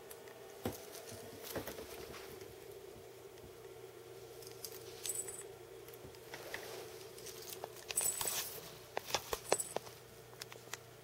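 A cat's metal collar tag clinking and soft taps and scuffs as the cat moves right up against the camcorder, in scattered clicks that come thicker and louder in the last few seconds, some with a brief high metallic ring. A faint steady hum runs underneath.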